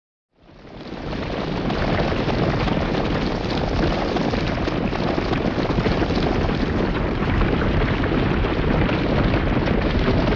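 Logo intro sound effect: a dense rushing noise with a deep low end. It swells in over the first second or two, then holds steady.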